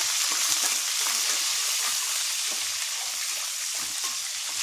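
Shallots, garlic, curry leaves and green chillies sizzling in hot sunflower oil in a steel pot, stirred with a steel ladle. The sizzle is strong and steady and eases a little over the seconds.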